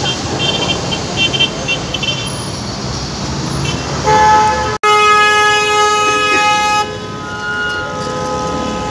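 Busy street traffic with a few short high beeps, then a loud vehicle horn blast sounding several tones at once about four seconds in. The blast lasts nearly three seconds, with a brief gap just after it starts.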